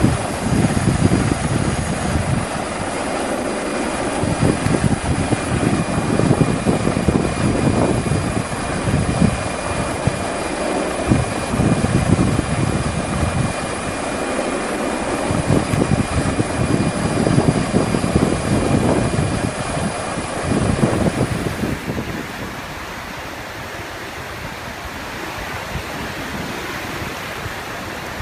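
Gusting wind noise on the microphone over a steady engine hum with a faint high whine, as heard filming from a helicopter over storm seas. About 22 seconds in it changes abruptly to the steady rush of heavy surf.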